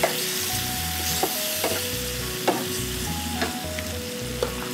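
Potatoes in curd sizzling in a non-stick frying pan over a low flame while a wooden spatula stirs them, with a few light clicks. Soft background music with held notes plays underneath.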